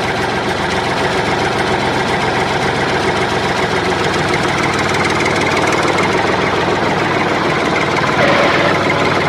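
Engine idling steadily, a little louder about eight seconds in.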